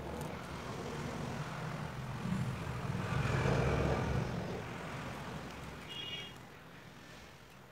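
A road vehicle passing by: a low rumble that swells to a peak a few seconds in and then fades, with a short high beep near the end.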